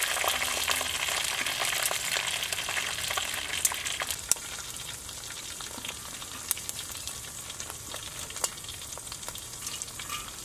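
Roasted chicken crackling and sizzling in a hot steel pot as it is lifted out with metal tongs. The crackle dies down after about four seconds, leaving occasional sharp clicks of metal utensils.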